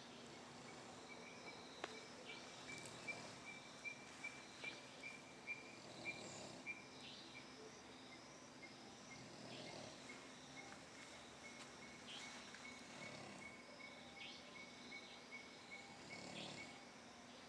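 Faint night wildlife ambience: a small creature chirping in a regular series of high notes about twice a second, plainer in the first few seconds, with scattered other short high calls. Faint snoring breaths sound every few seconds underneath.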